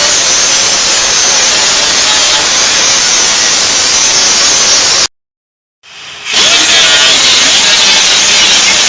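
Power tool cutting into the rusted sheet steel of a car's floor pan, a loud steady grinding hiss. It cuts off abruptly about five seconds in and starts again about a second later.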